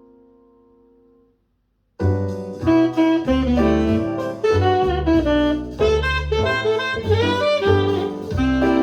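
The last chord of a keyboard piece dies away into a brief silence. About two seconds in, a jazz track starts, with saxophone over bass and piano, played back through a 1995 Mission 761i loudspeaker.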